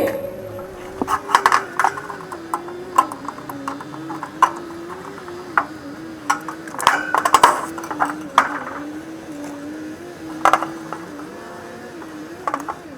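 Hand tools and small metal parts clicking and clinking in irregular bursts while an air-conditioning condenser's electrical components are worked on, over a faint wavering hum.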